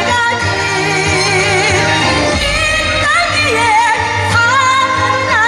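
A Korean folk singer (sorikkun) singing into a microphone over amplified backing music with a steady bass. Her voice wavers with wide vibrato and bends between notes.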